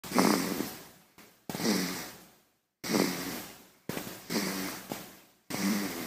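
A baby snoring: short, pitched snoring breaths coming about once a second, each starting sharply and fading away.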